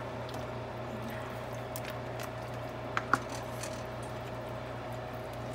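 Soft squishing of dumpling dough dropped into chicken broth and pushed under with a spatula, with two sharp clicks of the utensil against the pot about three seconds in, over a steady low hum.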